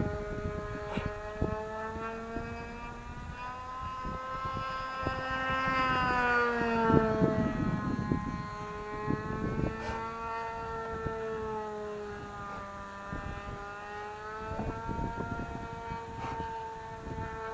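Small engine of a radio-controlled model plane droning steadily in flight. Its pitch rises and falls as the plane flies past, most strongly about six seconds in and again near the end, over low wind rumble on the microphone.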